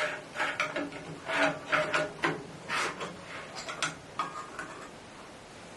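Metal pry bar clicking, scraping and clinking against a metal tin lid as it is worked open, in a run of irregular sharp clicks with a faint ring that dies away after about four and a half seconds.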